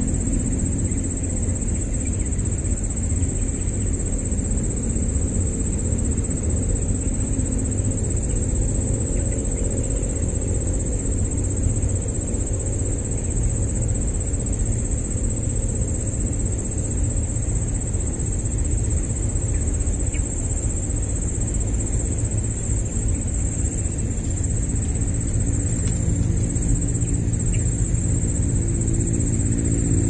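A steady, high-pitched insect drone holds on one unbroken note, over a continuous low rumble.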